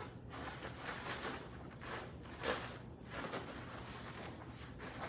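Cotton karate gis swishing and bare feet stepping and pivoting on foam mats as two people throw a roundhouse, side and back kick moving backwards: a string of soft swishes, the strongest about two and a half seconds in, over a steady low room hum.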